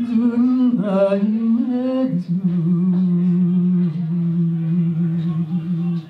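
A woman's unaccompanied voice holding long wordless notes into a microphone. The first note is held for about two seconds with a brief dip near one second, then the voice drops to a lower note and holds it steadily.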